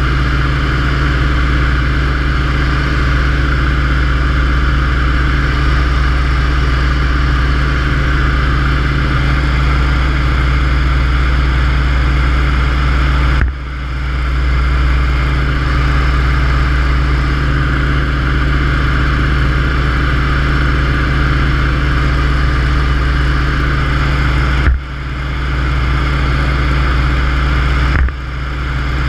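Yak-52's nine-cylinder Vedeneyev M-14P radial engine and propeller in cruise, a loud steady drone with rushing airflow, heard from inside the cockpit. The level dips briefly three times, about a third of the way in, near the end, and just before the end.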